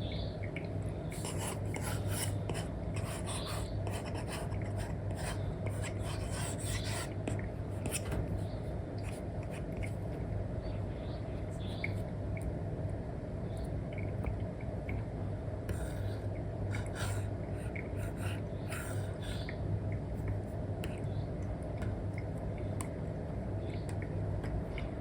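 Apple Pencil stylus with an Elecom nib scratching across a paper-like matte screen film on an iPad in short, irregular strokes, over a steady low background hum.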